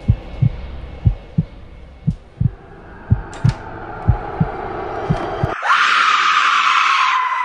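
Horror film soundtrack: a slow heartbeat effect, low thumps in pairs about once a second, under a drone that slowly rises and builds. About five and a half seconds in, the heartbeat cuts off and a sudden, loud, shrill scream takes over, its pitch sliding slightly down.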